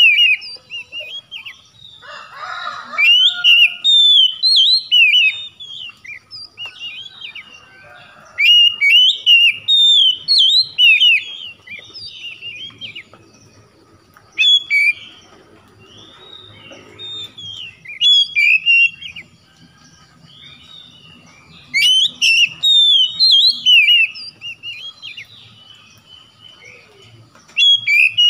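Oriental magpie-robin singing: loud bursts of rapid, varied whistled phrases lasting a few seconds each, separated by short quieter gaps.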